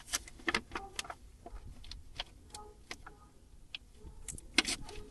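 Hand tools on metal: irregular clicks and clinks, a few with a short metallic ring, the sharpest one about four and a half seconds in.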